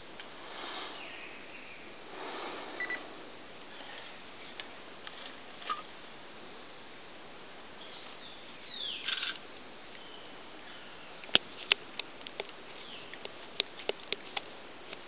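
Quiet forest background with a few short bird calls, one of them falling in pitch about nine seconds in, then a quick run of sharp clicks in the last few seconds.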